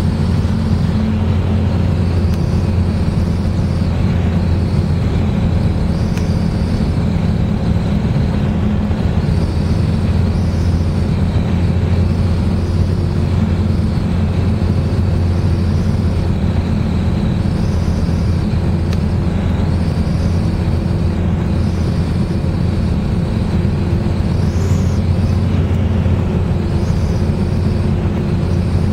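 Scheibe Motor Falke motor glider's piston engine and propeller running with a steady, loud drone, heard from inside the cockpit.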